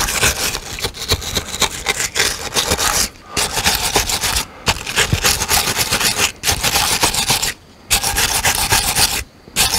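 Hand-held wire brush scrubbing a lead-acid battery's terminal post in quick back-and-forth strokes, cleaning the terminal. The scrubbing comes in spells broken by several short pauses.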